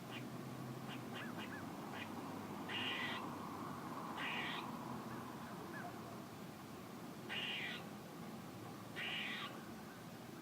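Squirrel calling: a quick run of short chirps, then four longer calls of about half a second each, spaced one to three seconds apart.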